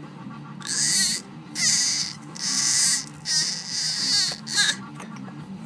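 A baby making a series of about six short, breathy, high-pitched squeals, each about half a second long, with short gaps between them.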